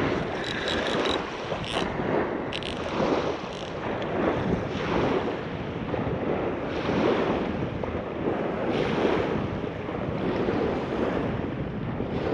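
Surf washing onto a sandy beach, with wind rushing over the microphone, and a few short clicks in the first few seconds.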